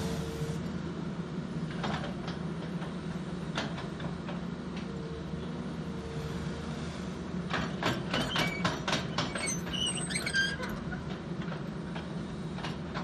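Volvo EC210B long-reach excavator running steadily while it trims a soil slope, with a hydraulic whine coming and going. About eight to ten seconds in comes a burst of clattering clicks and short high squeaks.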